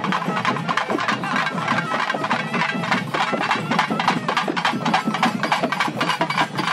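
Folk drum troupe beating double-headed barrel drums with sticks in a fast, dense, unbroken rhythm.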